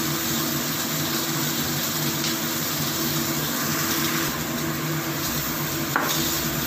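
Steady hiss with a faint low hum under it, and one light knock about six seconds in as a plastic sauce bottle is set down on the wooden table.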